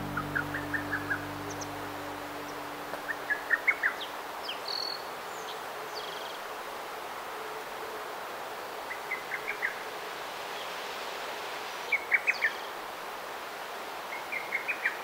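A songbird singing short phrases of quick high notes, repeated every few seconds, over a steady outdoor hiss. The last chord of background music dies away in the first few seconds.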